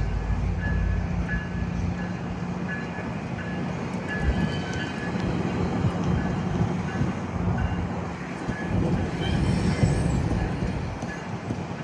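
GO Transit MP40PH-3C diesel locomotive train arriving at a station: a steady engine and rail rumble, with a bell dinging about twice a second. A brief high wheel squeal comes about nine seconds in.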